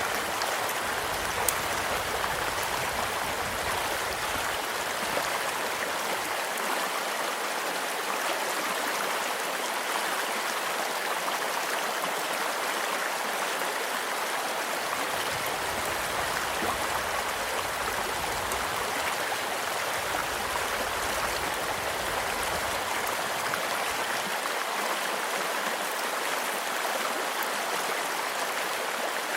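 Steady rushing and babbling of a small stream, with occasional faint pops and crackles from a campfire burning beside it; one sharper pop comes about a second and a half in.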